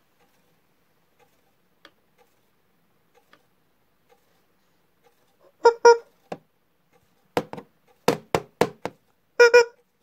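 Rubber squeeze-toy squeaks: two short honking squeaks about six seconds in, then a quick run of five or six more and a last one near the end.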